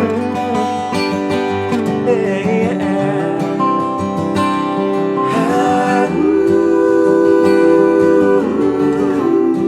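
Outro of a gospel song: acoustic guitar strumming under long held notes, one held for a couple of seconds past the middle.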